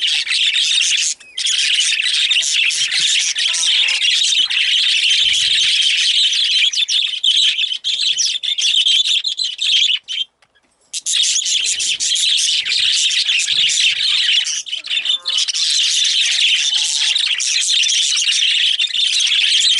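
A group of budgerigars chattering and chirping nonstop in a dense, warbling mix, with a brief pause about ten seconds in.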